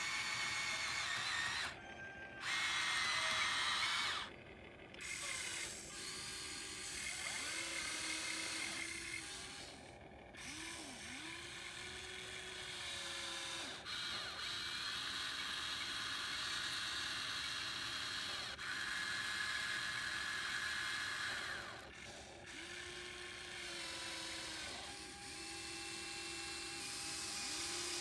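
RC model excavator's electric motors and hydraulic pump whining in a series of short runs, with brief pauses, the pitch dipping and shifting as each movement starts and stops.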